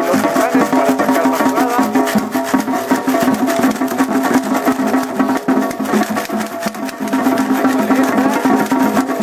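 Music with busy, fast percussion over steady held tones.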